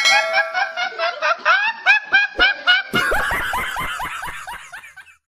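Hard, high-pitched laughter in rapid repeated bursts, about three or four a second. About three seconds in, a different man's laugh takes over and fades away.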